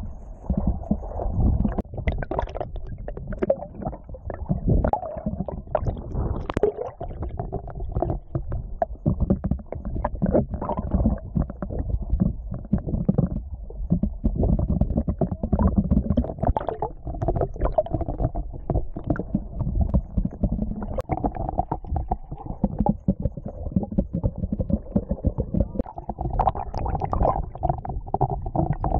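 Muffled underwater rumbling and sloshing from water moving around a camera in a waterproof housing just below the surface, dotted with frequent small knocks and crackles.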